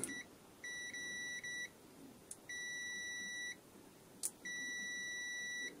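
Zoyi ZT-701 multimeter's continuity buzzer beeping as the test probes make contact, signalling a closed circuit. There are three steady, high beeps of about a second each, a second or so apart. The first stutters briefly, and a short click comes just before each of the other two.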